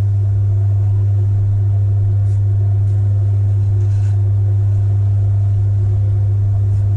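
Low, steady hum of an electric potter's wheel running, with a few faint scrapes of a texturing tool against the turning clay.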